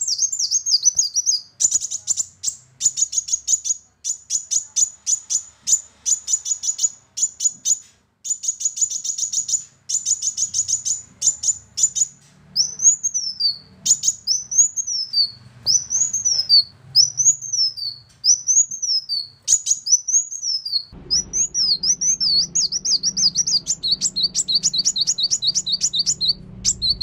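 Kolibri wulung, a sunbird, singing: runs of fast, high, chirping notes broken by short pauses, then a series of whistled notes that each rise and fall, then rapid twittering trills near the end.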